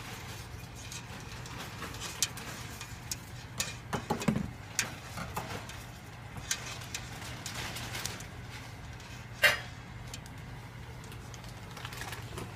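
Scattered clicks, taps and scrapes of a live Dungeness crab's shell and claws and the steel kitchen scissors against a stainless steel pot, with the sharpest knock about nine and a half seconds in, over a steady low hum.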